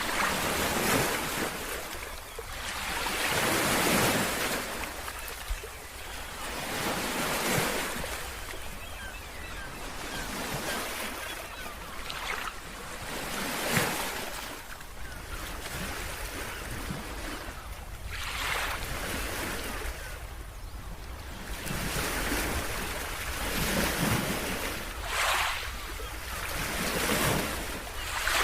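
Ocean waves breaking and washing up the shore, swelling and falling back every few seconds, with wind noise on the microphone.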